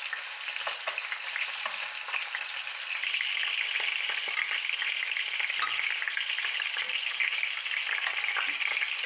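Slices of lamb testicles frying in hot oil in a thick-walled cast-iron skillet: a steady sizzle thick with fine crackling and spitting, which grows louder about three seconds in.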